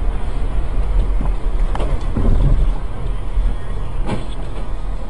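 In-car road noise from a car driving on a wet road: a steady low rumble of engine and tyres, with two brief louder sounds, about two seconds in and about four seconds in.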